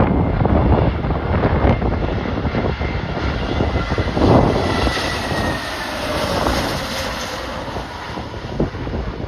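Jet airliner on final approach passing the microphone, its engines a steady noise with a faint whine that falls slightly in pitch near the middle. Gusty wind buffets the microphone throughout.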